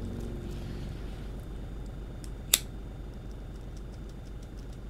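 Steady low room hum with one sharp click about halfway through.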